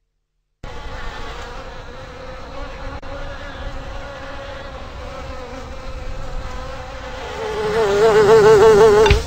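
Buzzing of a cartoon housefly, faint and steady at first, then much louder and wavering in pitch from about seven seconds in, stopping abruptly at the end.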